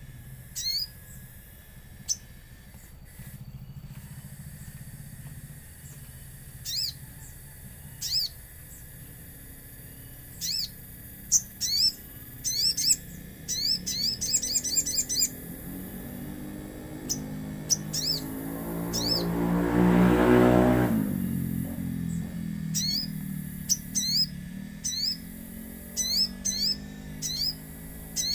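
Sogon songbird calling: short, sharp, high downward-sweeping chirps, singly and in quick rapid runs. About two-thirds of the way through, a passing vehicle swells and fades, briefly the loudest sound.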